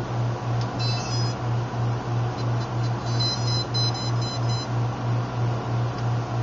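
Electronic beeps from the quadcopter's electronics with its battery just connected: a short cluster of high beeps about a second in, then a run of quick repeated beeps from about two and a half to four and a half seconds. Under them runs a steady low hum that throbs about three times a second.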